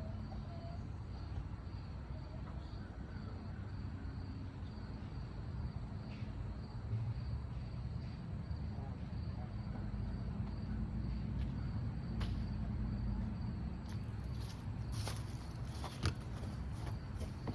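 Insects chirping steadily in a high, pulsing trill over a low outdoor rumble; in the last few seconds, a run of clicks and crackles from hands digging through garden soil.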